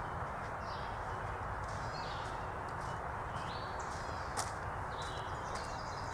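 Footsteps pacing over outdoor ground, with birds chirping repeatedly in the background over a steady outdoor hiss, and one sharp click a little past four seconds in.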